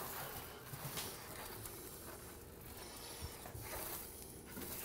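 Small paint roller rolling gritty tile primer over glazed ceramic tile: a faint rubbing in repeated back-and-forth strokes.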